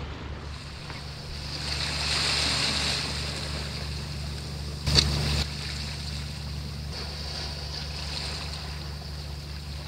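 Steady sea and wind noise on a rocky shoreline, swelling a little for a second or so, with one short, sharp thump about five seconds in.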